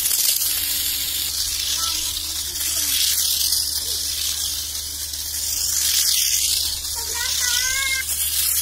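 Two Tamiya Mini 4WD cars with Hyper-Dash motors running laps on a concrete track: a high, hissing whir of motors, gears and tyres that swells and fades every few seconds as they pass. A child's high voice calls out briefly near the end.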